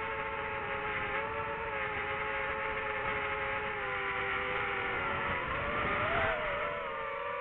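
DJI FPV drone's motors and propellers whining steadily, in several stacked tones. The pitch dips and then climbs sharply near the end as the throttle changes.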